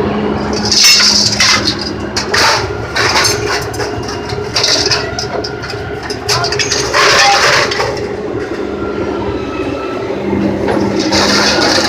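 Loose scrap metal crashing and clanging as a magnet crane lifts and drops it, a series of irregular loud crashes over the crane's steady engine hum.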